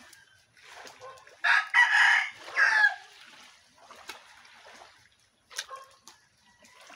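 A rooster crowing once: a drawn-out call of about a second and a half that drops in pitch at the end. A few faint sharp clicks follow later.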